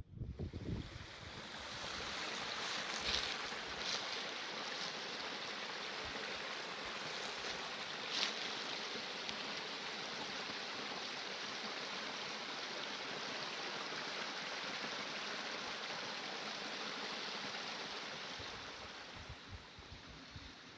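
A small stream running over stones: a steady rushing that swells about two seconds in and fades away near the end, with a few faint clicks.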